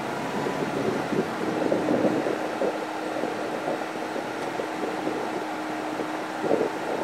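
Wind buffeting the microphone of a camera mounted on the outside of a moving car, in uneven gusts over steady road and vehicle noise with a constant low hum.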